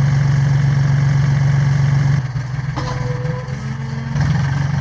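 Tractor engine running steadily; it eases off about two seconds in and picks back up about four seconds in.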